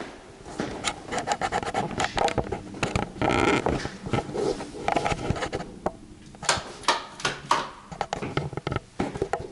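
Footsteps, knocks and scrapes of a handheld camera being carried through empty rooms, a string of short irregular clicks with a louder half-second stretch about three seconds in.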